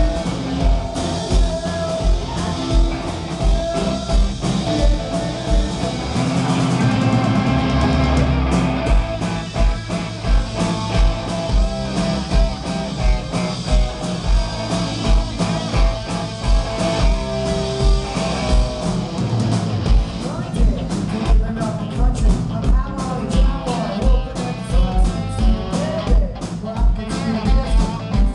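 Rock band playing live: a drum kit with a steady kick drum about twice a second, electric guitar and bass, and singing. About six seconds in the kick drum drops out for a few seconds under a held, louder passage, then the beat resumes.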